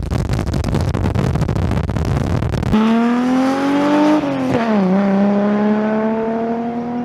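Two-stroke snowmobile engine in a go-kart running hard: a loud rough noise for the first few seconds, then a steady engine tone that climbs in pitch, drops briefly about four and a half seconds in, and climbs again.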